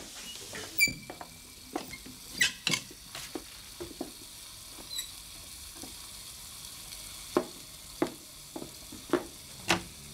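Food frying in a pan with a faint steady sizzle, under scattered knocks and a couple of short ringing clinks of kitchen things.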